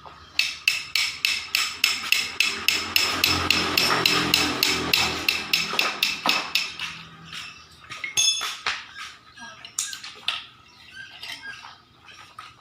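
A hammer striking metal in a fast, even run of about four blows a second, each with a ringing metallic tone, for about six seconds. After that come a few scattered clinks of metal parts.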